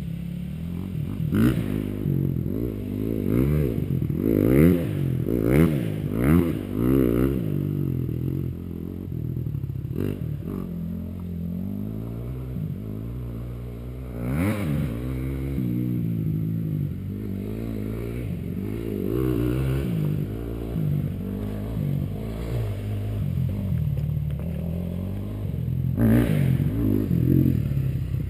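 Small dirt bike engine revving up and dropping back again and again as it is ridden around a track, its pitch climbing and falling every second or so.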